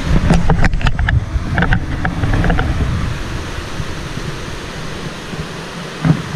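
Low rumbling wind and handling noise on a moving camera's microphone, with scattered knocks and rustles from walking with gear and a sharper thump near the end. The rumble eases off about halfway through.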